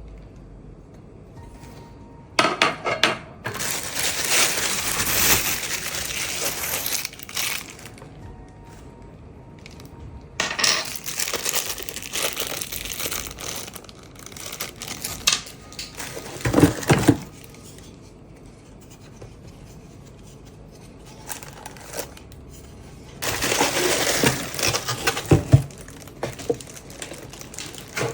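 Plastic packaging being unwrapped and handled, crinkling and rustling in three long bursts, with quiet background music underneath.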